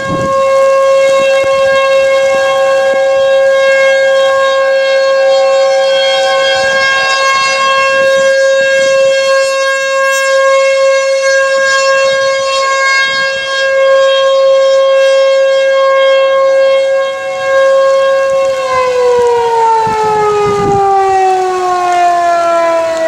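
American Signal Tempest T-128 rotating outdoor warning siren sounding a loud steady tone, then starting to wind down about eighteen seconds in, its pitch falling steadily as the test signal ends.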